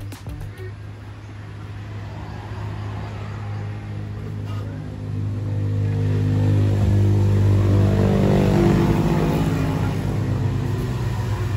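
A motor vehicle's engine running steadily with a low hum, growing louder through the middle and easing off slightly near the end, as if passing close by.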